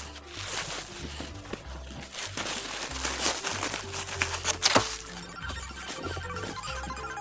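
Background music with a repeating bass line, over crinkling, crackling noises, with one sharp crackle about five seconds in.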